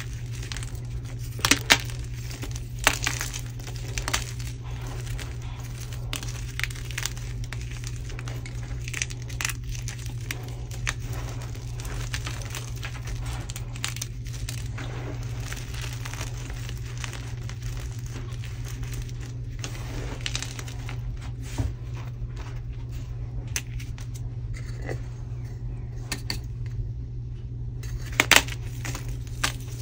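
Hands squeezing and crumbling pieces of a dyed gym chalk block, a continuous dry crunching and crackling with a few sharper cracks. Near the end a plain white gym chalk thin is broken with a couple of loud snaps.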